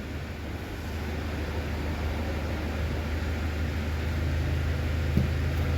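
Toyota Hilux four-cylinder petrol engine idling steadily with a low, even hum, running smoothly now that the water in its ignition coil connectors that kept it stalling has been cleared.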